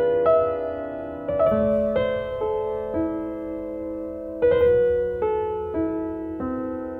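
Slow, gentle piano music: single notes and chords struck one after another, each left to fade.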